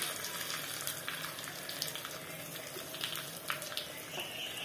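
Hot oil in a small tempering ladle sizzling steadily with scattered small crackles as curry leaves, vadagam, fennel and asafoetida fry in it.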